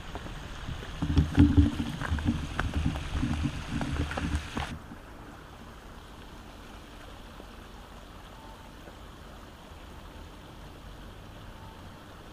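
Irregular rumbling of wind and handling on a moving camera's microphone with a few sharp clicks, which cuts off abruptly about five seconds in, leaving a steady low outdoor hiss.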